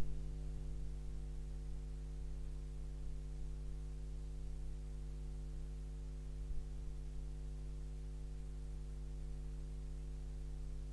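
Steady low electrical mains hum from the live microphone and sound system, with one faint bump about six and a half seconds in.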